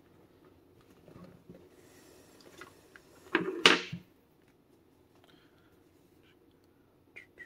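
Phone-box packaging being handled as the folding phone is lifted out of its tray: faint rustling and rubbing, then one loud scrape lasting under a second about three and a half seconds in, and a couple of light clicks near the end.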